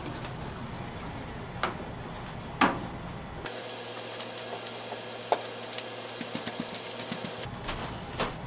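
Light scrapes and small clicks of a stick working two-part filler into a wooden drill handle, with two sharper clicks in the first few seconds and a run of faint ticks later. A low steady hum runs underneath.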